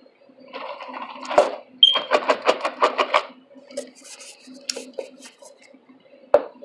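Ice cubes rattling inside a paper cup as it is shaken, a run of quick rattles, then a few separate clinks. Near the end comes a single sharp knock as the cup is set down on the table.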